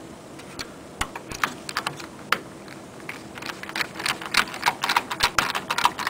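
Screwdriver turning small screws back down into a sunroof's metal guide: a run of light, sharp clicks, scattered at first and coming quicker and closer together in the second half.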